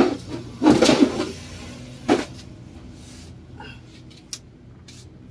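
Plywood sheets being shoved and squared up on a stack by hand: wooden scraping and knocking, loudest about a second in, with another knock near two seconds, then quieter handling. A steady low hum runs underneath.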